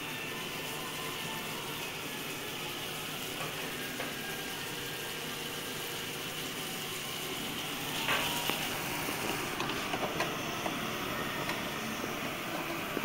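Chopped tomatoes simmering and sizzling in a pot over a gas burner: a steady hiss. From about eight seconds in it grows a little louder, with a few light clicks and knocks over it.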